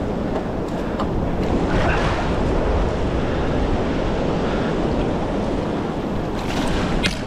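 Wind buffeting the microphone over a steady rush of water, with a couple of faint clicks.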